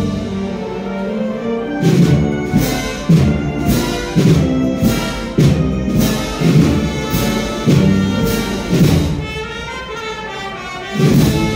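A wind band plays a processional march: brass and woodwinds over a steady drum beat, a little under two beats a second. The band eases off shortly before the end, then swells again.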